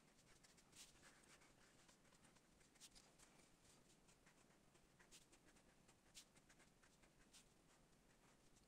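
Faint scratching of a felt-tip marker drawing on paper, in short strokes at irregular intervals.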